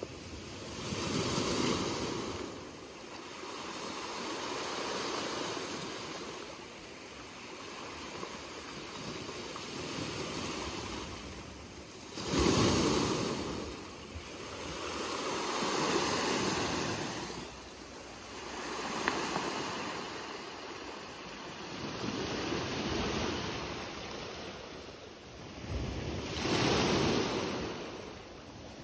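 Small sea waves breaking and washing up on a beach of rounded black lava pebbles, each wave swelling and fading every three to four seconds.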